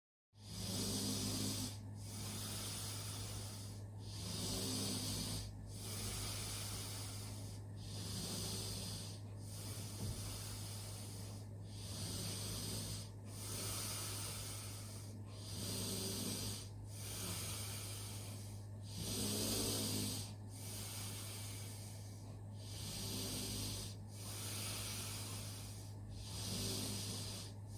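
Russell Hobbs RHDW3B-M dishwasher running a wash cycle: water from the spray arm swishes over and over, about once every one to two seconds, over a steady low pump hum.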